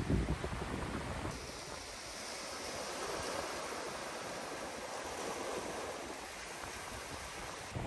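Steady wash of sea water, waves or surf, with wind rumbling on the microphone in the first second or so.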